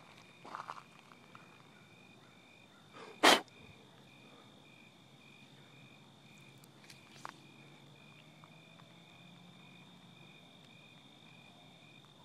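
Faint, steady chirping of insects, a pulsing chirp repeating about twice a second over a continuous high buzz. About three seconds in comes a single short, loud swish.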